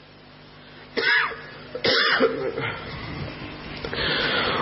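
A person coughing twice, about a second apart, then clearing the throat near the end.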